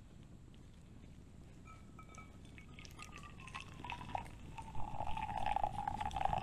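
Hot water poured from a small camp kettle into a pour-over coffee filter cone on a mug. It starts faint, with a tone that slides gently down in pitch, and grows louder about three seconds in, the pour loudest near the end.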